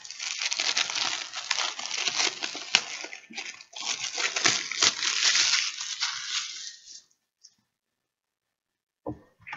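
Plastic packaging of a Blu-ray case crinkling and rustling as it is handled and unwrapped for about seven seconds, then stopping. A couple of light clicks come near the end.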